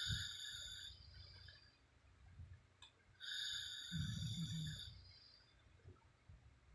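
A sleeping woman snoring: two slow breaths about three seconds apart, each carrying a thin, high whistle, with a short low snore rumble in the middle of the second breath, about four seconds in.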